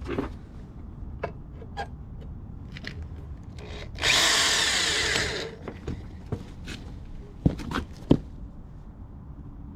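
A handheld power tool runs against steel for about a second and a half, cleaning up fresh welds. A few sharp knocks and light clicks come after it.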